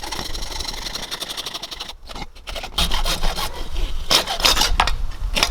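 Saw cutting PVC pipe with repeated rasping strokes, growing louder about halfway through.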